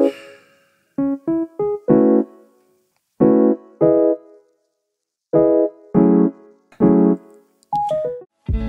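Intro music: keyboard chords played as short separate stabs with silent gaps between them. A fuller track with a deep bass comes in near the end.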